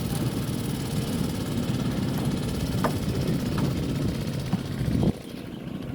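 An engine idling with a steady low rumble, which drops sharply in level about five seconds in.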